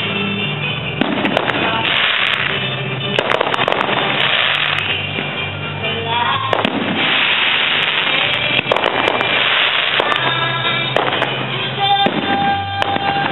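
Fireworks display: sharp bangs and repeated crackling bursts, each crackle lasting about a second, with music playing underneath.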